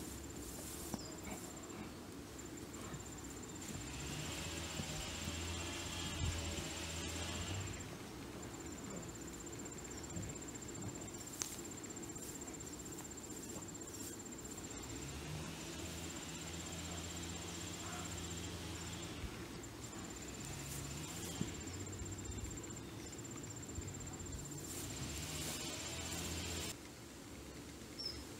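Two dogs digging in dry dirt, paws scraping and flinging soil in bouts of a few seconds each. Under it, a steady high-pitched insect trill with short breaks.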